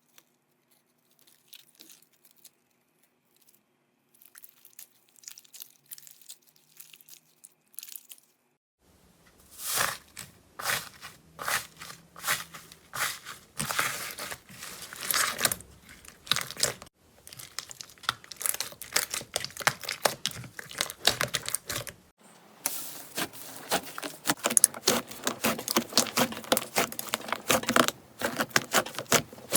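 Slime being squeezed and pressed by hand, making fast, sticky clicks and crackles. It is faint and sparse for the first third. Then it turns loud and dense, stops briefly about three quarters of the way through, and resumes denser still.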